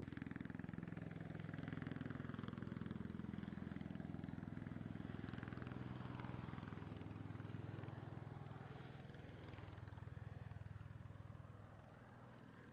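V-22 Osprey tiltrotor's rotors and engines, a steady low hum with a rapid pulsing beat, dropping in level near the end.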